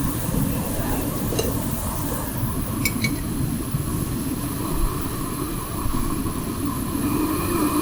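Backpacking gas stove burner running steadily under a pot of water coming to the boil, with a few light metallic clinks.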